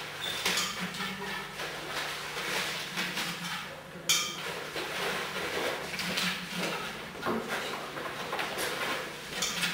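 Paper coupons rustling and sliding as they are shaken out of a cardboard box into a glass bowl, with light clinks and one sharp knock about four seconds in.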